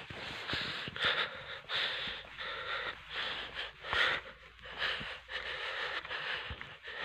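A person breathing hard close to the phone's microphone, in repeated rushing breaths about one to two a second.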